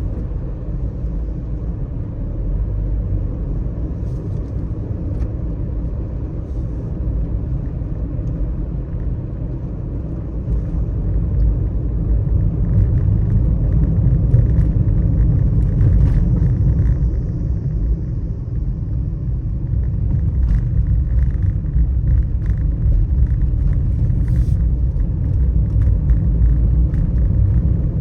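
Car driving on a wet road: a steady low rumble of engine and tyre noise, with scattered faint ticks over it, growing somewhat louder about twelve seconds in.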